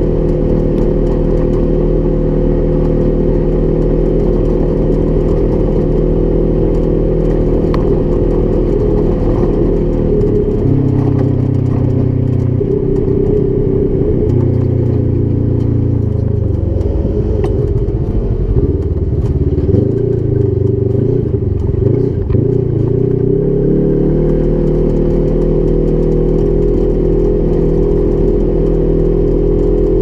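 Polaris RZR XP 1000 UTV engine running while driving, mostly at a steady pitch. The engine note shifts up and down several times in the middle. There is rattling and clatter between about 16 and 24 seconds in.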